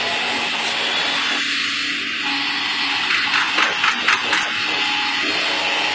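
JCB 200 tracked excavator working soil, its diesel engine and hydraulics running steadily. A quick run of clanks comes between about three and four and a half seconds in.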